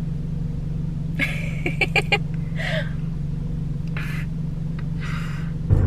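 Steady low rumble of a car being driven, heard from inside the cabin. A few short clicks and soft breathy sounds come over it, starting about a second in.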